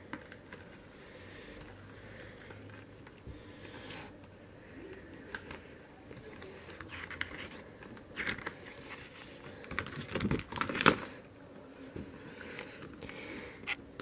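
Glossy photo pages of a spiral-bound desk calendar being turned and handled: faint intermittent paper rustles and light clicks, loudest in a cluster a few seconds before the end.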